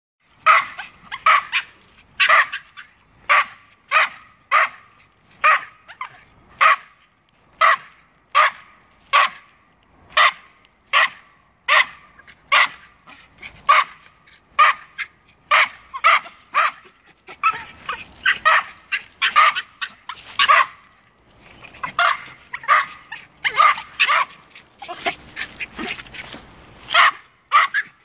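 Norfolk terriers barking up at a squirrel in a tree: a regular run of short, sharp barks about one to two a second, which come faster and overlap from about two-thirds of the way in.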